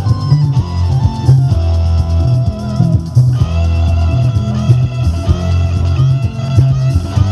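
Rock music with guitar, bass and drums played through the speakers of a Toshiba BomBeat WX-1 boombox, the bass notes strongest.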